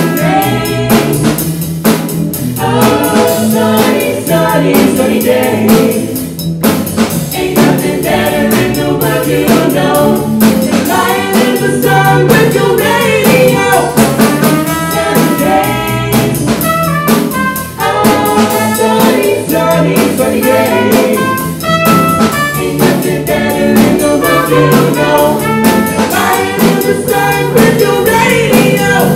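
Live rock band with a horn section playing: trumpets and trombone over drum kit, guitars and bass.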